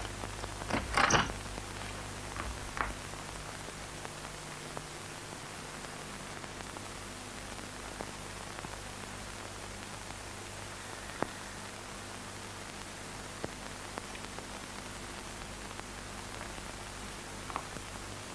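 Steady hiss with a low hum from an old film soundtrack, with a short louder noise about a second in and a few faint clicks later.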